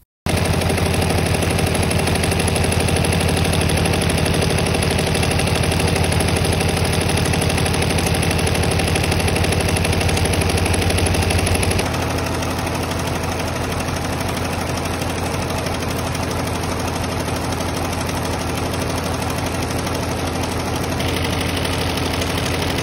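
Multi-needle commercial embroidery machine stitching steadily with a fast, even rattle of needle strokes as it sews down the edges of twill appliqué letters. The sound gets a little quieter about halfway through.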